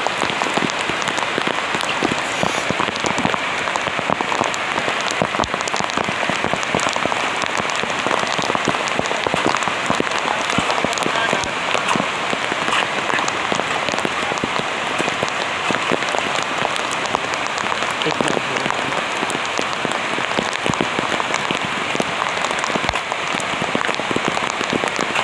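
Heavy rain falling steadily, with a dense patter of individual drops striking nearby surfaces.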